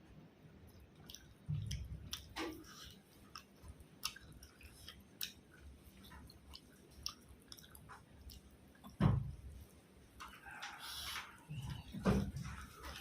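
A person chewing and eating, with wet mouth sounds and small sharp clicks, and a few dull thumps spread through.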